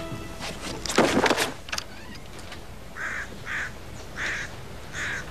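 A short clatter of knocks about a second in, then a crow cawing four times, about half a second to a second apart.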